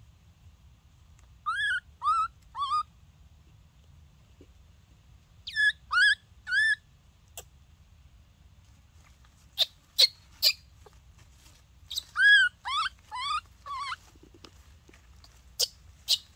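A baby monkey calling in short, high cries, each rising in pitch and coming in sets of about three. A few sharp clicks fall between the later sets.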